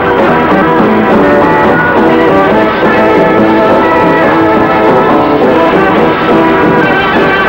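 Instrumental dance music from a film soundtrack, loud and steady, with many notes held together.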